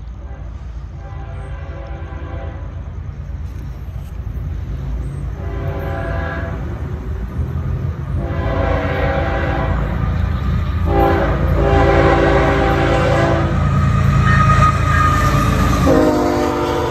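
Florida East Coast Railway freight locomotive approaching and entering a grade crossing, sounding its air horn in a series of long blasts that grow louder as it nears. Under the horn, the locomotive's engine and wheels make a rumble that builds steadily.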